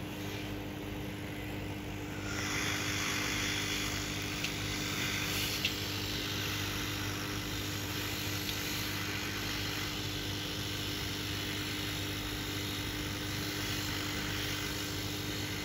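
Steady rushing air noise over a low electrical hum; the rushing grows louder about two seconds in and then holds steady.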